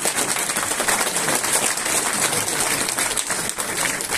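A crowd applauding: many hands clapping together in a steady patter.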